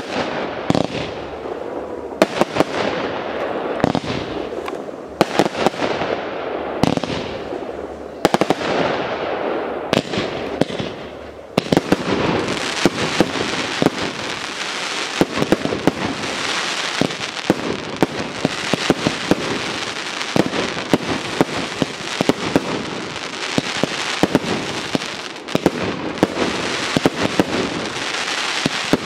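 Aerial firework shells bursting one after another, each sharp bang trailing off. About twelve seconds in, the firing thickens into a dense, continuous crackling barrage packed with rapid pops.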